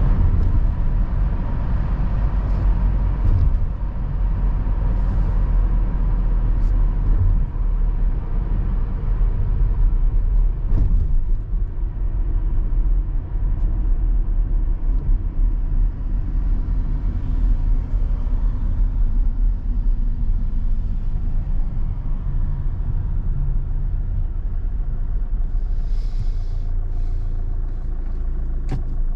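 Steady low road and engine rumble of a car driving, heard from inside the car, with a few brief knocks.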